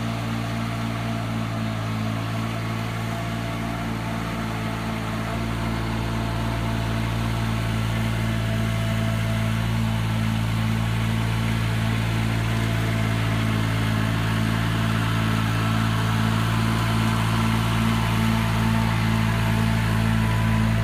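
Fiori Miniload 1200 mini loader's engine running at a steady speed as the loader drives slowly toward the listener, growing gradually louder.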